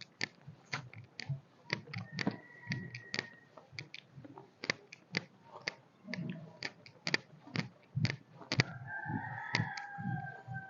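A bird calls twice: a short held call about two seconds in and a longer one near the end. Scattered sharp clicks run under both calls.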